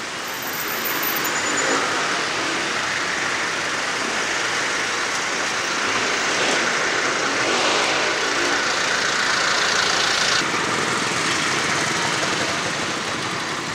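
Steady rush of wind and road noise on the microphone of a bicycle moving through traffic, with the engines of motor vehicles running close alongside.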